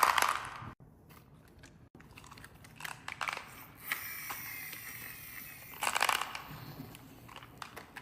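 Marbles rolling and clicking on a wooden marble run: separate knocks and rolling, a faint falling ring partway through, and a louder clatter about six seconds in.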